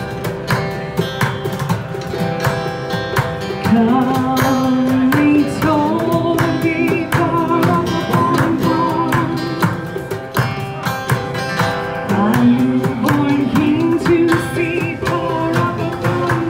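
Live acoustic performance: a woman singing into a microphone, backed by a strummed acoustic guitar and a small drum tapped with sticks in a steady beat.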